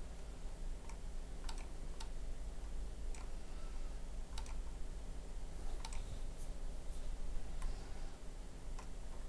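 Scattered single clicks of a computer mouse at irregular intervals, about a dozen, over a low steady hum.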